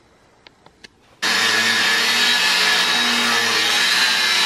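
Angle grinder running against steel, starting abruptly about a second in and then holding a loud, steady, high-pitched grinding with a hum underneath. A few faint taps come before it.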